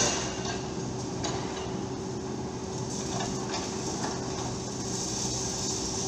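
Excavator diesel engines running steadily, with a few light knocks and clatter from concrete rubble being worked. A hydraulic breaker's rapid hammering cuts off right at the start.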